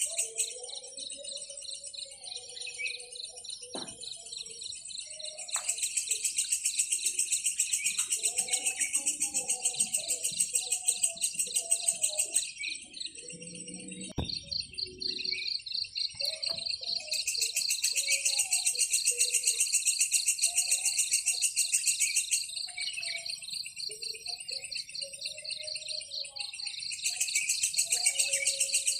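Insect chorus: a rapid, evenly pulsed high-pitched trill that swells and drops back in stretches of several seconds, with scattered short bird chirps underneath.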